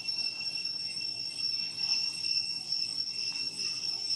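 Insects droning steadily at a high pitch, a continuous shrill tone with a second, lower tone beneath it.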